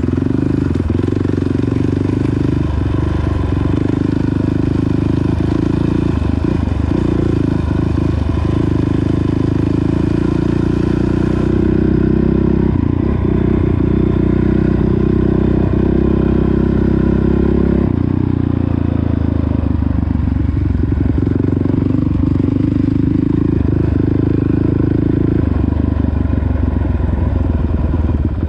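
Motocross dirt bike engine running under throttle as it is ridden round the track, its pitch rising and falling several times.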